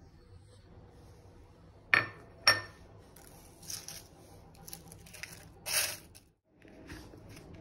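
Kitchenware clinking while ingredients are handled: two sharp ringing clinks about two seconds in, half a second apart, then several shorter rustling, scraping handling noises.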